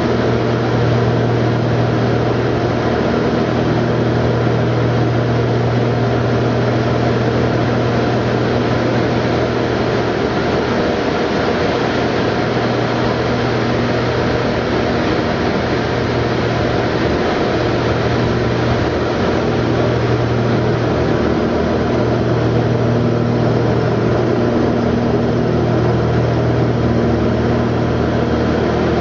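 Light aircraft's piston engine and propeller droning steadily, heard inside the cockpit with airflow noise. The deep hum wavers briefly a couple of times.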